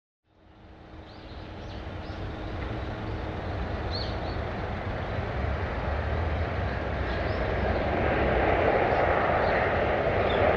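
Jet airliner engine noise fading in and building steadily louder as the aircraft approaches, with a few faint short high chirps above it.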